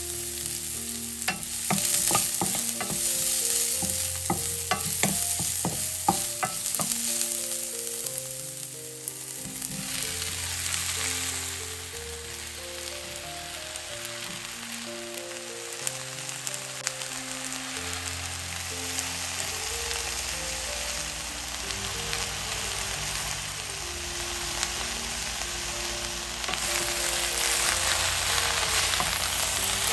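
Vegetables sizzling in hot oil in a stainless steel wok, with a steady hiss. A spatula stirs them and clicks against the pan, the clicks coming thickest in the first several seconds, and the stirring grows louder near the end.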